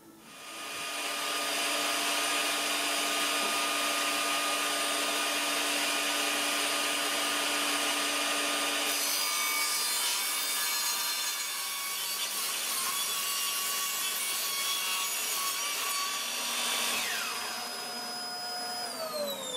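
Bosch benchtop table saw starting up and ripping a wooden board at a 45-degree bevel, its motor whining steadily over the cutting noise. Near the end it is switched off, and the pitch falls as the blade runs down.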